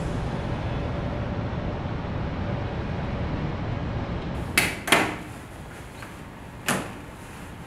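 A steady low rumble that drops away about four and a half seconds in. Then come two sharp knocks close together and, about two seconds later, a third, like a door or latch being handled in a room.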